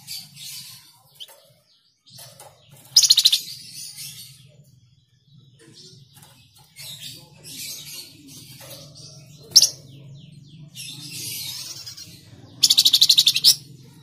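Caged flamboyan (tledekan jati) songbird singing in scattered high chirps and short phrases, with two loud, fast rattling trills, one about three seconds in and one near the end, and a single sharp chirp around the middle.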